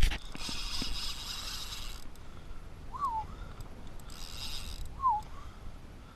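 Conventional fishing reel's drag buzzing as a hooked bluefish pulls line, in two runs: one of about a second and a half, then a shorter one. Two short falling bird calls come between and after the runs.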